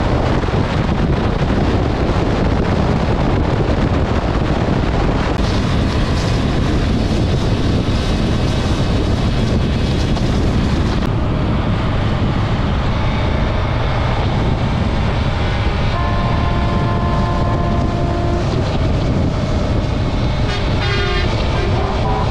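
Heavy wind noise on a motorcycle-mounted camera at highway speed, with engine and road noise beneath it. From about two-thirds of the way in, long held horn blasts from passing convoy vehicles sound over it, with a fast-pulsing horn sound near the end.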